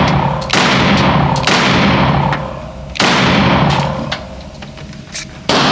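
Glock 32 pistol, chambered in .357 SIG, fired four times at an uneven pace of about a second or more between shots. Each shot is very loud and sharp, with a long echoing decay. Fainter clicks and pops fall between the shots.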